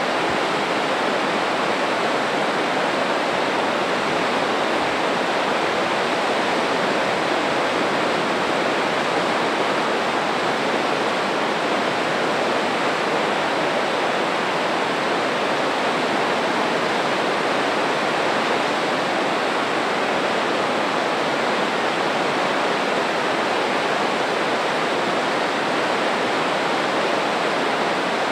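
Spokane Falls in heavy flow: a loud, steady rush of falling water and churning whitewater, even and unbroken throughout.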